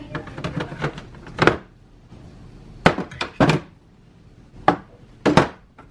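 Grocery items and containers being handled and set down: a run of light clicks, then about six sharp knocks and thunks spaced irregularly.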